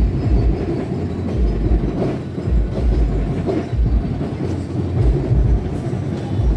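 Car audio sound system playing bass-heavy music loudly, the deep bass thumping in pulses over a dense rumble.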